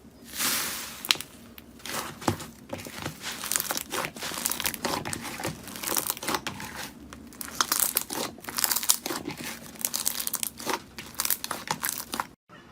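Slime being squeezed and pressed by hand, giving dense, irregular crackling and crinkling clicks that come in louder clusters. It cuts out briefly near the end.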